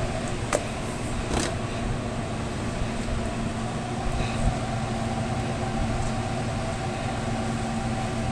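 Steady hum of food-truck kitchen machinery, with a low droning tone and a fan-like rush underneath. Two light clicks come about half a second and a second and a half in.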